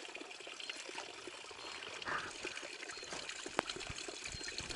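River water trickling and burbling steadily, with a single sharp click about three and a half seconds in.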